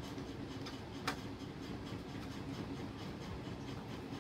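Small screwdriver working a screw out of a plastic wall-clock case, with one sharp click about a second in and a few faint clicks, over a steady low hum.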